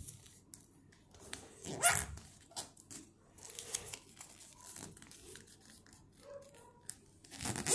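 A sheet of origami paper being handled and creased by hand, with faint rustling. About two seconds in there is one short, loud, sharp sound.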